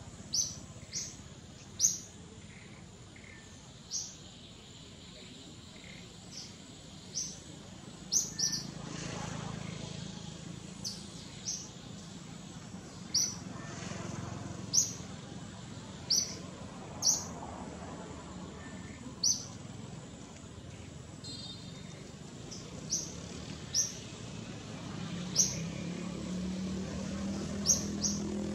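A bird's short, sharp, high chirps, repeated irregularly about every one to two seconds over soft outdoor background noise. A low engine hum comes in near the end.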